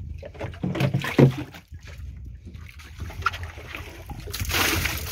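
Seawater thrown from a container onto the deck of a fibreglass fishing boat to rinse the catch, with a loud splash about four and a half seconds in, over a steady low rumble of wind and water. A short loud knock comes about a second in.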